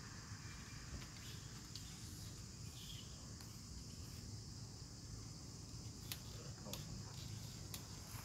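Steady high insect chorus, a continuous drone, over a low outdoor rumble, with a few light clicks in the last couple of seconds.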